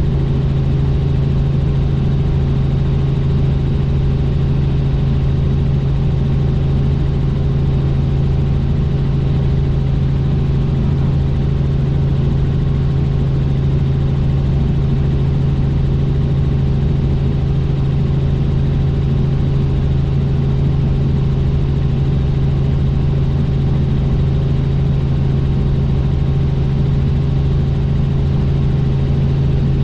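Helicopter in flight: the steady, unchanging drone of its rotors and turbine, with a strong low hum.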